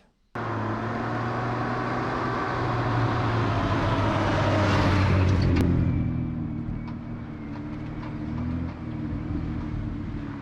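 Motor vehicle engine running, cutting in abruptly just after the start, swelling to its loudest about five seconds in and then easing off, as if driving past.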